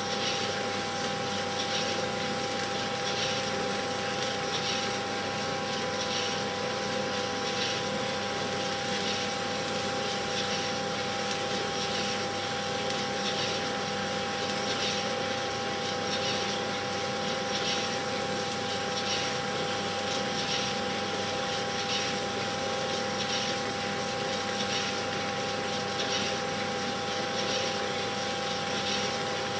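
Steady mechanical whirr with a constant hum and a faint swish repeating about every second and a half.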